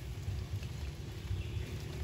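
Outdoor background: an uneven low rumble with a faint steady hum, and no clear animal call.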